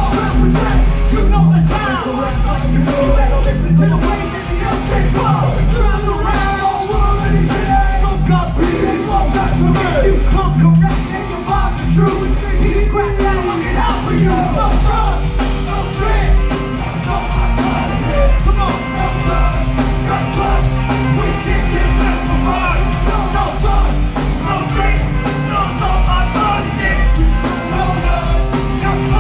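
Live rapcore band playing loud through a venue PA: drums, bass and distorted electric guitars with shouted and sung vocals.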